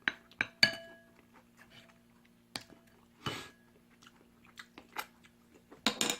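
Close-up eating sounds of instant ramen: sharp clicks and clinks of utensils against the bowl, some with a short ringing tone, between quieter mouth and chewing noises. A brief hissing burst comes about three seconds in, and a quick cluster of loud clicks near the end.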